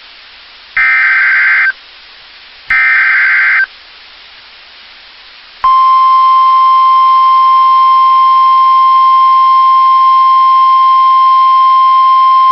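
NOAA Weather Radio EAS alert for a tornado warning. Two of the three warbling digital SAME header bursts, each about a second long, are followed after a short pause by the steady single-pitch 1050 Hz warning alarm tone, which begins about six seconds in and holds.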